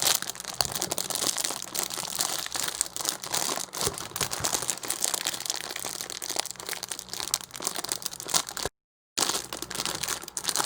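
Plastic packaging crinkling and rustling as it is handled and pulled at in an attempt to open it. The sound cuts out completely for a moment near the end.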